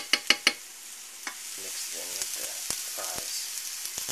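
Crinkle-cut fries sizzling in bacon grease in a nonstick frying pan, with a steady hiss. A metal fork clicks against the pan several times in quick succession in the first half-second, then taps a few more times.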